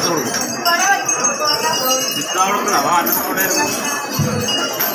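Small metal bells jingling over the chatter of a crowd, with a brief low thud about four seconds in.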